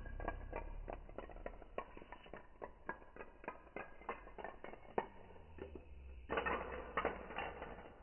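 A chain of dominoes toppling one after another on a hard stone floor, a quick irregular run of clicks, then a denser clatter about six seconds in as the small stacked tower at the end of the line falls.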